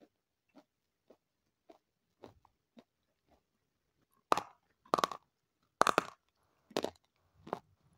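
Close-up eating sounds of crunchy food: soft chewing at first, then about five loud crunching bites a little under a second apart, starting about halfway through.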